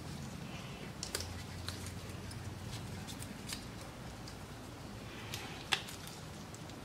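Scattered light clicks, taps and rustling of gloved hands working at a motorcycle engine's water pump housing, with one sharper click a little before the end.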